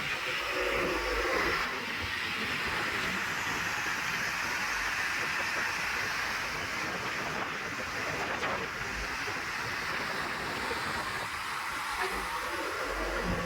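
Escorts Digmax backhoe loader's diesel engine running steadily while it digs, heard as an even hissing machine noise.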